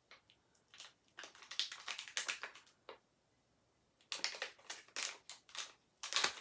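Small toy packet wrapper crinkling and crackling as it is pulled and twisted in a struggle to tear it open. The crackles come in two runs of rapid clicks, with a pause of about a second between them.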